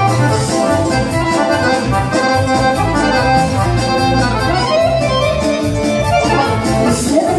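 Chromatic button accordion playing a lead line of quick, running notes in Serbian folk music (narodna muzika), over a low bass line and drums with cymbals keeping a steady beat.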